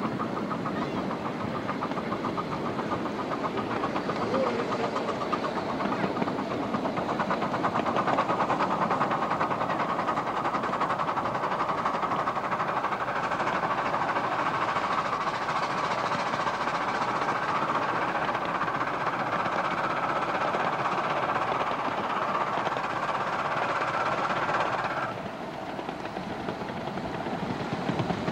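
A miniature steam locomotive running along a ride-on miniature railway, heard from on board, with a rapid steady beat. About three seconds before the end the sound drops and becomes duller.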